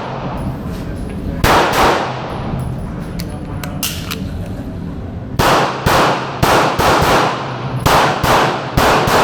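Smith & Wesson Shield Plus pistol firing in quick double shots: one pair about a second and a half in, then a rapid string of pairs from about five seconds in to the end.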